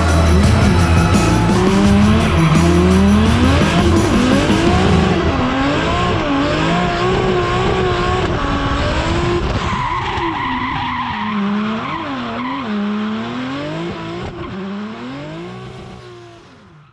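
Toyota GR Supra drift car's 2JZ straight-six engine, tuned to about 600 hp, revving up and down again and again through a drift, with tyre squeal. The sound fades out near the end.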